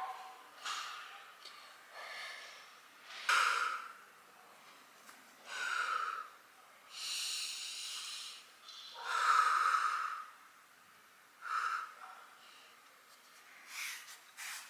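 A woman breathing hard as she stretches: a string of audible exhales and breaths at irregular intervals, one longer exhale near the middle.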